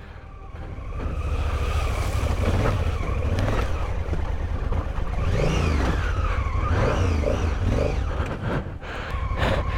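Adventure motorcycle engine running at low speed on a rough trail, a steady deep rumble that builds over the first second or so, with a few higher whines rising and falling about midway.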